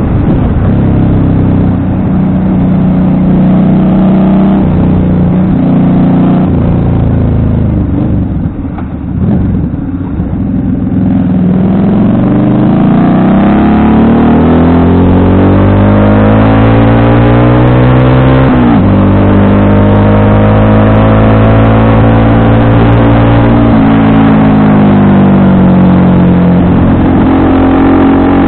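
FKM Victorino 250i V-twin motorcycle engine running under way. It eases off about eight seconds in, then pulls up through the gears, the pitch climbing and dropping back sharply at upshifts about eighteen and twenty-four seconds in.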